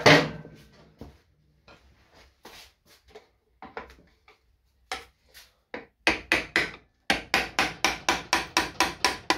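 Hammer tapping on a Piaggio Sfera scooter's variomatic (CVT) cover to knock it loose where it has seized from sitting unused: a hard knock at first, scattered lighter taps, then a quick even run of strikes about four a second in the last few seconds.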